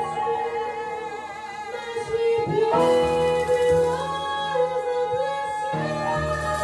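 Female jazz vocalist singing long held notes into a microphone over a small combo of upright bass, piano and drums.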